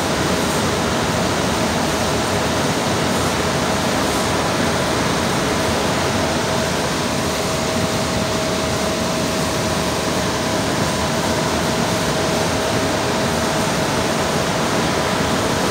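Blower fan of a 20 HP floor-standing air conditioner running fan-only with its compressor off, giving a steady rush of air with a steady hum-like tone through it.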